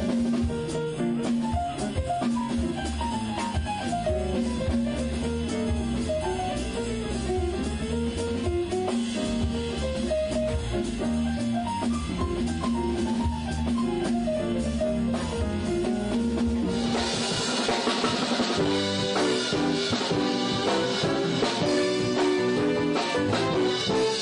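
Live band music with piano and drum kit. About seventeen seconds in the band comes in fuller, with cymbals and a brighter, busier sound.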